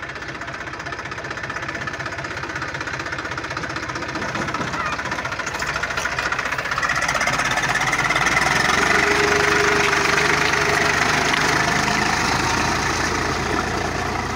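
Eicher 480 tractor's diesel engine running, growing louder about halfway through as the tractor comes close, then easing slightly.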